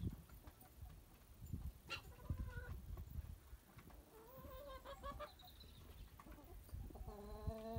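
Domestic hens clucking and calling in three spells: about two seconds in, from about four to five seconds, and again near the end, over a low rumble.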